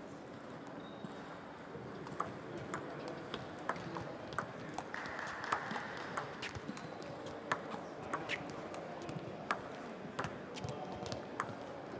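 Table tennis balls clicking sharply off bats and tables in rallies, many short knocks at irregular spacing over a steady hum of hall background noise.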